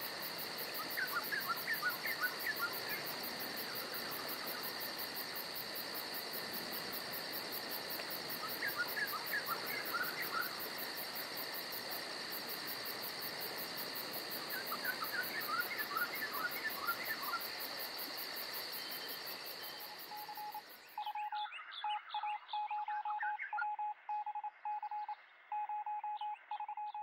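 A steady, high insect chorus of crickets or similar insects, with three short flurries of chirping bird calls several seconds apart. About 21 seconds in, the outdoor sound cuts off and is replaced by a series of electronic beeps at one pitch, like telephone tones.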